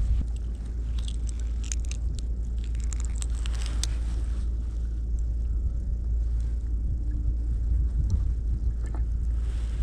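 Wind buffeting the microphone in a steady low rumble, with a scatter of sharp clicks and ticks in the first few seconds.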